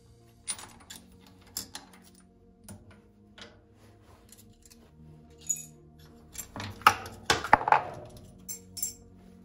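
Metal clinks and clicks of clamp hardware and hand tools on a milling machine's rotary table as the vise setup holding an aluminum workpiece is handled. A louder burst of metal-on-metal clatter comes about seven seconds in.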